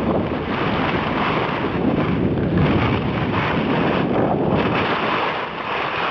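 Wind buffeting the microphone while skiing downhill, over a steady rushing hiss of skis sliding on snow.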